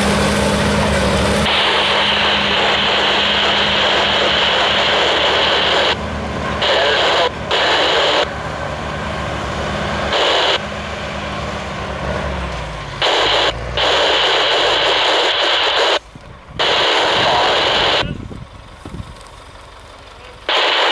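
Diesel engine of a Caterpillar skidder fitted out as a fire engine, running steadily, its note dropping and fading about halfway through. Over it a loud hiss cuts in and out abruptly in blocks.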